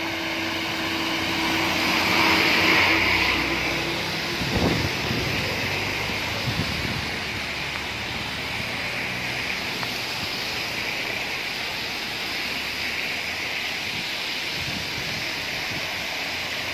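Vehicles driving past on a rain-soaked road, with tyre hiss on wet asphalt over steady rain noise. A bus engine hums in the first few seconds, and the tyre hiss swells to its loudest about two to three seconds in as the bus goes by.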